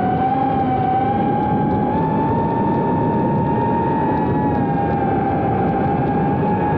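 Geprc Cinelog 30 FPV quadcopter's brushless motors and propellers whining steadily over a rush of noise, heard from the drone itself. The pitch rises a little about two seconds in and wavers slightly with throttle.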